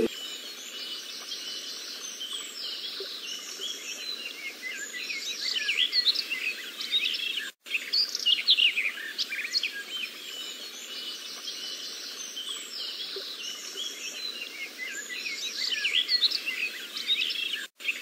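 Birdsong ambience: many small birds chirping and singing in quick rising and falling notes over a faint steady hiss. The sound cuts out for an instant about seven and a half seconds in and again near the end, as the recording loops.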